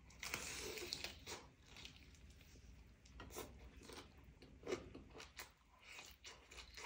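A person biting and chewing roasted duck, with a stretch of crunching in the first second and scattered crisp crunches after it.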